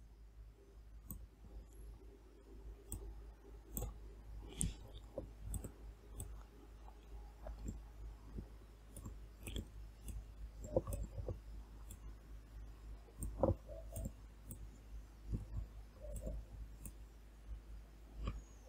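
Faint computer mouse clicks at irregular intervals, over a low steady hum.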